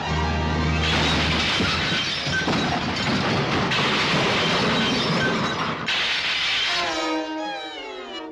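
Cartoon soundtrack: orchestral music under a long crashing, shattering noise lasting several seconds, then a falling run of notes near the end.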